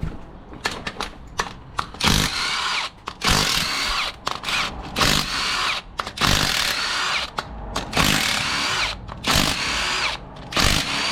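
Handheld power drill-driver run in about six short bursts, its motor whine rising and falling in each, as rocker arm bolts are undone on the engine's second cylinder head.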